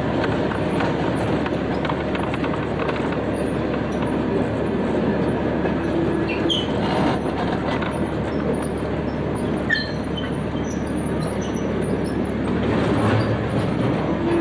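Rumble and clatter of a narrow-gauge train's wheels on the track, heard from an open passenger car as the train rolls along.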